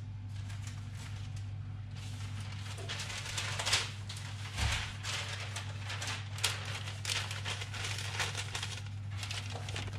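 Newspaper rustling and crinkling in short handling strokes while sheets are moved about, over a steady low hum.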